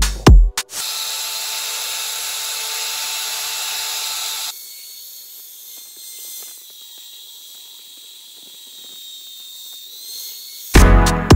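Drill press running, its twist bit cutting into steel angle iron. It is louder and hissier for the first few seconds, then drops about four and a half seconds in to a quieter, steady cutting noise as the bit bores in. Background music comes in briefly at the very start and again near the end.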